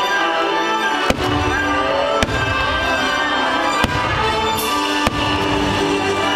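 Fireworks bursting over loud orchestral show music: four sharp bangs about a second apart over sustained musical notes.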